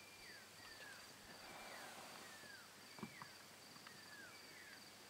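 Quiet night ambience: a short falling whistled call from an unseen animal, repeated about once a second, over a steady high insect trill, with one soft knock about three seconds in.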